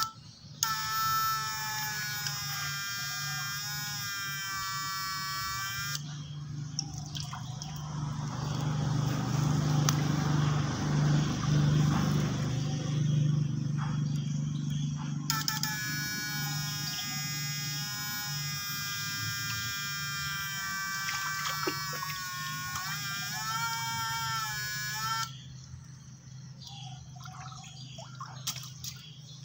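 A homemade PAC electric fish shocker's inverter buzzing with a steady high-pitched tone while it runs. It buzzes for about five seconds, gives way to a rougher noise, then buzzes again for about ten seconds from around halfway, its pitch wavering just before it cuts off.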